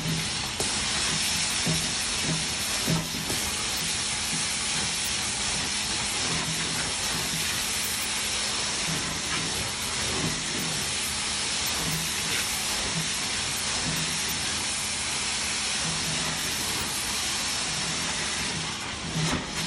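Hot-water carpet extraction wand pulled across carpet, its vacuum suction and spray making a loud, steady hiss, with a low hum that comes and goes.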